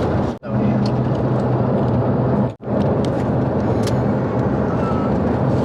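Steady road and engine noise heard inside a moving car's cabin, with a low hum; the sound drops out twice, briefly.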